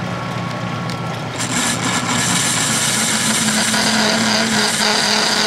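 Metal lathe running with a steady hum. About a second and a half in, the carbide-insert tool starts cutting the spinning metal workpiece, and a louder scraping hiss with a high whine joins the hum.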